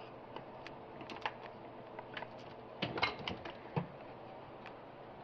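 Irregular light clicks and knocks of spark plug wires being pulled up out of the plug wire holder on an engine, with a brief cluster of louder knocks about three seconds in.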